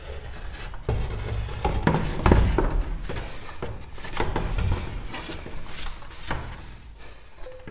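Irregular wooden knocks, bumps and rubbing as a long pine board is handled and pushed up against the ceiling from a stepladder.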